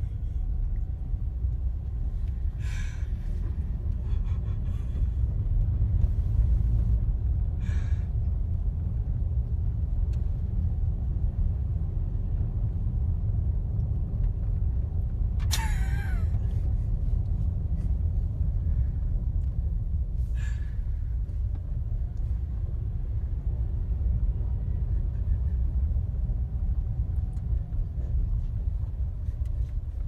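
Steady low rumble of a car driving along a highway, heard from inside the cabin, with a few short faint higher sounds and one sharp squeak falling in pitch about halfway through.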